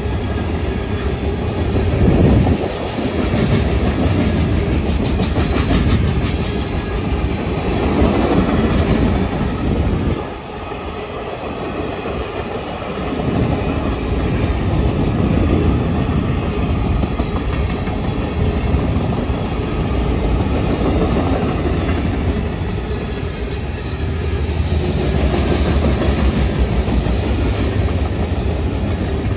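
Freight cars of a CSX manifest train rolling past a grade crossing: a steady rumble and clatter of steel wheels on the rails, easing briefly about ten seconds in. Short high-pitched squeals come from the wheels a few seconds in and again near the end.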